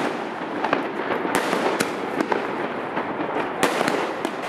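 Fireworks going off: a dense, continuous crackle broken by sharp bangs at irregular intervals.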